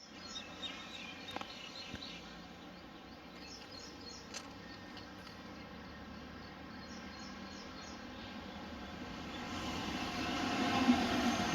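Faint chirps over steady outdoor noise, then from about nine seconds the running noise of a pair of WAG-5 electric locomotives swells up, with a low hum rising and getting louder.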